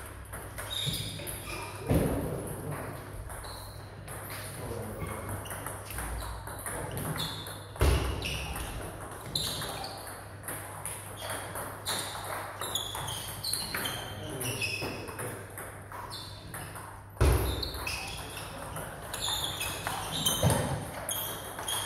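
Table tennis balls clicking off bats and bouncing on tables in quick, irregular rallies, with a few louder thumps along the way.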